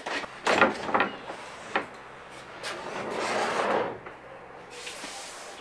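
A wall-mounted fold-down plywood workbench is gripped with a few knocks and then lowered on gas struts. It swings down with a rising rushing, sliding noise that settles about four seconds in, coming down in a controlled way without crashing.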